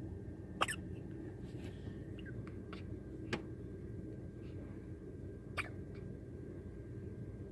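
Premature baby hiccuping: three short, sharp hics about two and a half seconds apart, with a few fainter ones between. Behind them is a steady low hum and a thin, high, steady tone.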